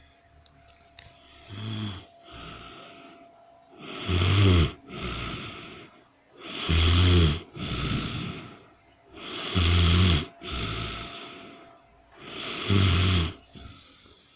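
A woman snoring in deep sleep: a loud, pitched snore on each in-breath about every three seconds, each followed by a breathy out-breath. The first snore, about two seconds in, is softer than the four that follow.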